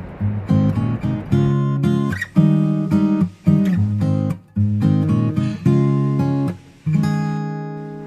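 Background music: acoustic guitar strumming chords in a steady rhythm, the last chord ringing out and fading near the end.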